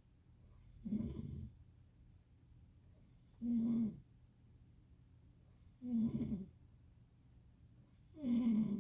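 Snoring in a slow, regular rhythm: four snores about two and a half seconds apart, each lasting about half a second.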